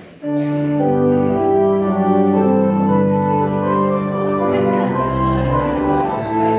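Church organ playing a postlude, starting abruptly with full held chords that move from one chord to the next. A deep pedal note comes in about five seconds in.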